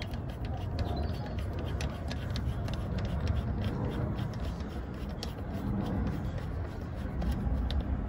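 Small irregular metallic clicks and taps as a brake pad retaining pin is turned back into a motorcycle's rear brake caliper with an Allen-bit socket, over a steady low rumble.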